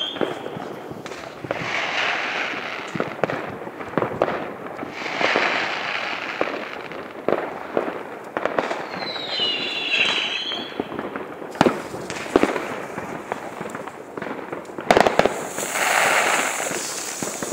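Fireworks going off: a string of sharp bangs and several stretches of dense crackling, with a whistle that bends down and back up about ten seconds in.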